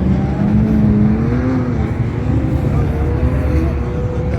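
Off-road vehicle engines running with a steady low rumble and a slowly wavering tone over it.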